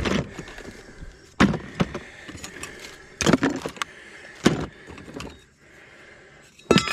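Gear being handled and moved about: about five separate knocks and clatters with rustling between them, the last, near the end, with a brief metallic ring.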